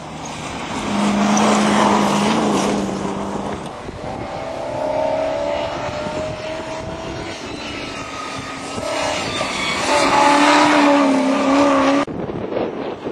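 Off-road racing 4x4 engines revving hard as the vehicles run past, the engine note rising and falling with the throttle, loudest twice. The sound cuts off abruptly near the end.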